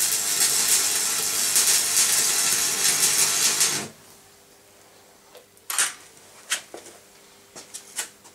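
Electric arc welder crackling and hissing as a bead is laid on steel, stopping abruptly about four seconds in. After that come a faint hum and a few light clicks.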